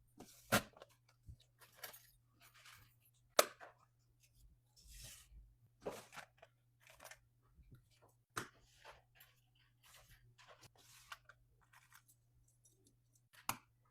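Small plastic items and packaging being handled: a scattered series of sharp clicks and short crinkling rustles, over a faint low hum.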